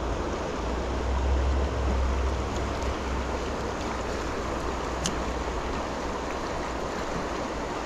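Steady rush of a mountain river's flowing water, with a low rumble on the microphone that fades out about two seconds in and one sharp click about five seconds in.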